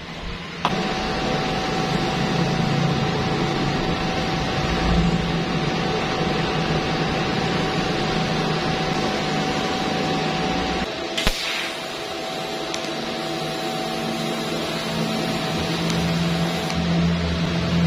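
TIG welding arc from a Stahlwerk InMIX-6LV welder burning: a steady hiss with a low hum and a thin steady tone. It starts suddenly about a second in and breaks off briefly with a click partway through before resuming.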